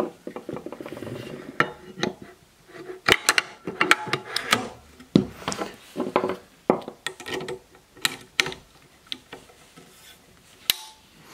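Beretta 682 over-and-under shotgun being put together on a wooden bench: irregular metallic clicks, clacks and knocks as the barrels are fitted onto the action and the fore-end is handled, some with a brief ring.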